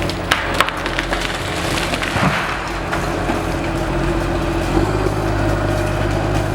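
A heavy logging machine's engine running steadily while wood cracks and splinters, with several sharp snaps in the first couple of seconds.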